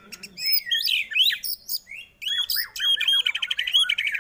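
White-rumped shama (murai batu) singing: a fast, varied run of whistles and clicks, then, about two seconds in, a rapid string of short falling notes, about five a second.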